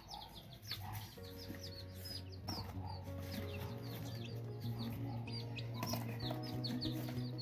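Young chicks peeping, a rapid stream of short, high, falling peeps from several birds at once. Background music with sustained notes comes in about a second in and grows slowly louder.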